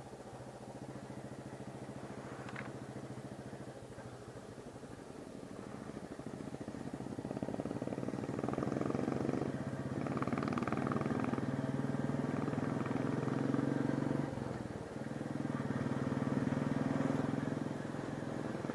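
Motorcycle engine running under way, a steady drone that grows louder about seven seconds in and dips briefly about fifteen seconds in.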